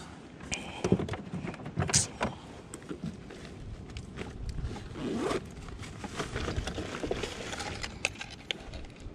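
Irregular knocks, clicks and scrapes of handling on a plastic kayak deck as a freshly landed bass is held up and moved about, with two sharper knocks about one and two seconds in.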